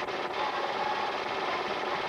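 A film projector running with a steady mechanical whir and rattle, with faint wavering tones near the top of the hum.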